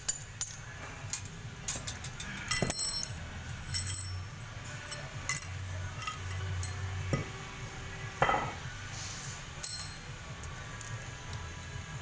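Metal tools and engine parts clinking and knocking every second or so during an engine teardown, over a steady low hum; one knock about eight seconds in is the loudest.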